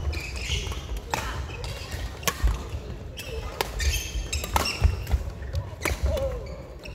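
Badminton rally: about five sharp smacks of rackets hitting the shuttlecock, roughly one every second or so, with voices in the background of a large sports hall.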